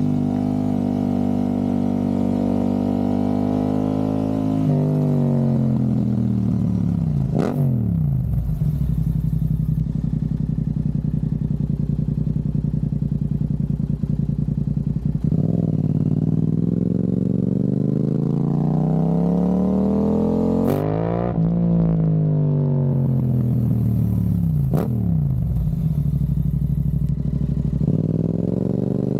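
Yamaha R7's 689 cc parallel-twin engine through an Akrapovic racing exhaust with the baffle removed, ridden on the road: its pitch falls as the throttle is closed, holds steady, then rises and falls again with throttle and gear changes. Three brief sharp cracks stand out over the engine, about a third of the way in and twice in the later part.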